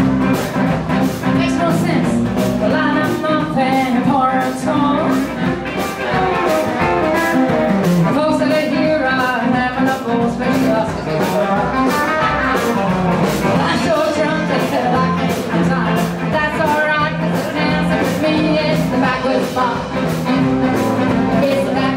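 Live blues band playing a 1950s-style blues number on electric and acoustic guitars, upright bass, drums and saxophones, with a steady beat.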